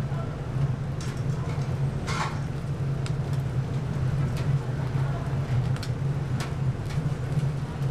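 Steady low machine hum, with a few scattered light clicks and knocks over it.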